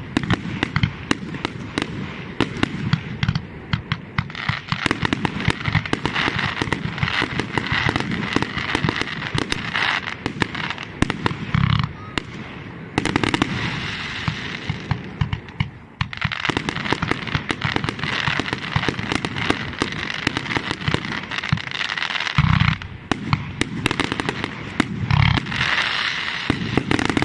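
Fireworks display: a dense, continuous crackle of rapid small bangs with a hissing fizz, and a few deep booms of bursting shells.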